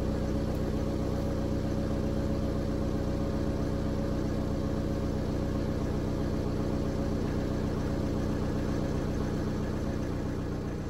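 BMW F10's engine idling steadily, running now that its CAS4 module has been repaired and new keys programmed after a no-crank, no-start fault.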